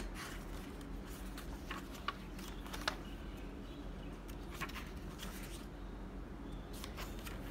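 Paper pages of a hardbound planner being turned and handled, with scattered brief rustles and soft taps.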